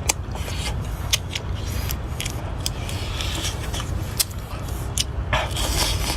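Sharp cracks and clicks of crab shell being broken and bitten while eating, a few scattered through, over a steady low rumble.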